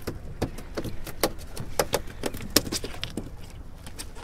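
Sharp, irregular clicks and light metallic taps on a fishing boat, about three to four a second, over a low steady rumble.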